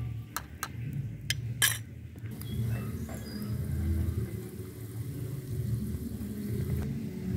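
Small metal spoon clinking against a miniature aluminium kadai while stirring nuts and garlic in oil: four sharp clinks in the first two seconds, then only a steady low rumble.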